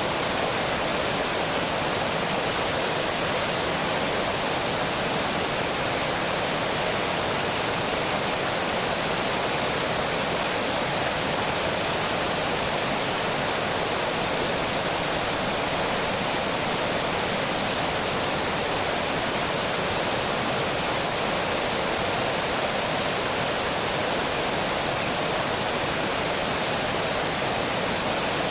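Water pouring over a small dam, a steady, even rush with no breaks.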